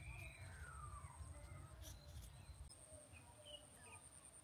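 Faint outdoor ambience: a bird gives one call that falls in pitch near the start, with a few faint chirps a few seconds later. A thin, steady high-pitched whine and a low rumble run underneath.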